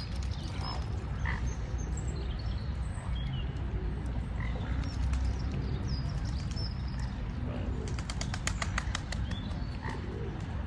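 Waterside ambience: a steady low rumble under scattered short bird calls, with a quick run of rattling clicks about eight seconds in.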